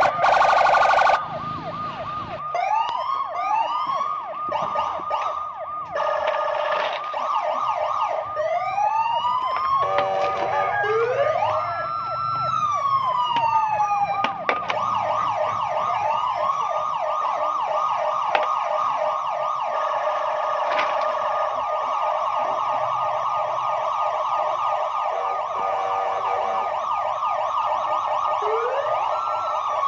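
Electronic siren sounding continuously, cycling through quick yelps and slower rising and falling wails, with several siren patterns overlapping.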